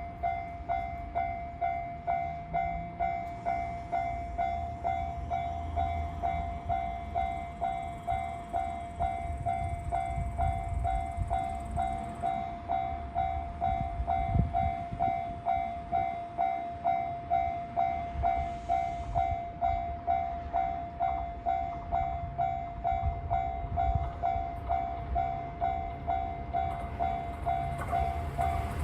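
Japanese railroad crossing warning bell ringing its steady "kan-kan", about one and a half strikes a second, over the low rumble of a train. Near the end a train's noise swells sharply as it reaches the crossing.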